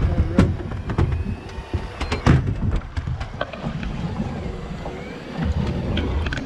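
Wind rushing over the microphone on an open boat at sea, with a run of sharp knocks and clicks in the first three seconds and a low rumble near the end.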